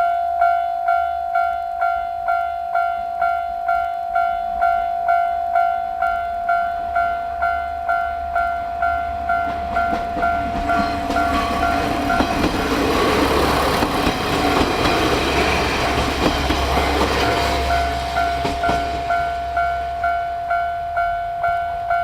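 Japanese railway level-crossing alarm ringing a steady, evenly repeated electronic ding. About ten seconds in, a train passes through the crossing, its rumble and wheel clatter swelling over the bell for several seconds and then fading.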